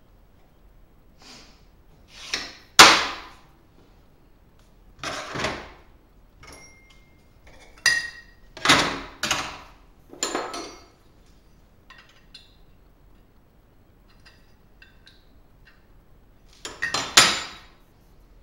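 Flat steel plates and parts being set down and shifted on a steel workbench: irregular metal clanks and short scrapes, a few pieces ringing briefly. A cluster of knocks comes in the middle, and a last clank comes near the end.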